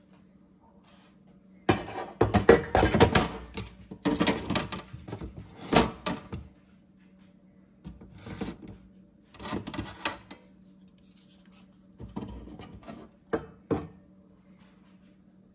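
Parts of a built-in coffee machine being handled during cleaning: clattering and rubbing in bursts, heaviest in the first few seconds and then in shorter clusters, over a faint steady hum.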